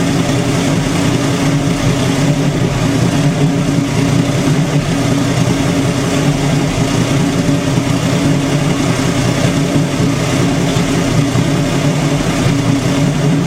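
AMC 258 (4.2 L) inline-six engine idling steadily through a straight-pipe exhaust.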